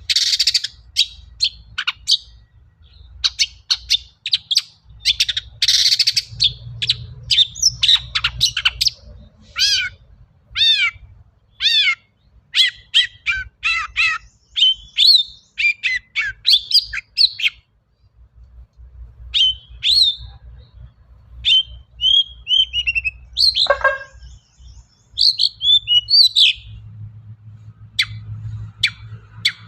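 Long-tailed shrike (cendet) singing a fast, varied song of chirps, harsh scratchy calls and quick down-slurred whistles, broken by a short pause a little past halfway.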